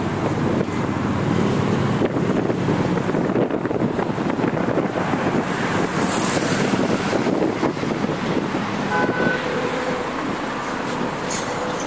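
Steady highway traffic noise, with wind buffeting the microphone. A brief high hiss comes about halfway through.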